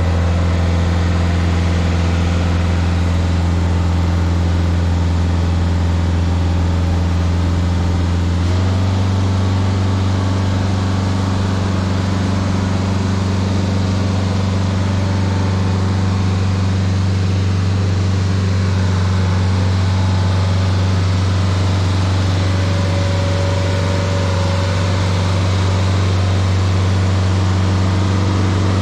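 Stump grinder engine running steadily at constant speed, not under changing load. Its pitch steps up slightly about eight and a half seconds in.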